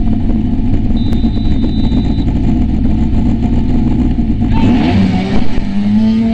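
Racing jet ski's engine running steadily, then revving up and down with rising and falling pitch from about four and a half seconds in, joined by a louder rushing noise.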